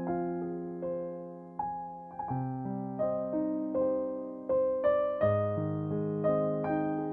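Background music: a gentle, slow piano (electric piano sound) playing single notes and chords, each note struck and left to fade.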